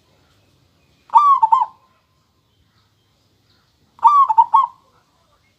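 Local zebra dove (perkutut) cooing with a clear voice: two short phrases of a few quick notes each, about three seconds apart, one about a second in and one near the end.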